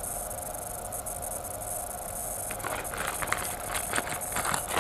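Drone frame kit parts and packaging being handled: light clicks and rustles start about halfway through, over a steady background hiss.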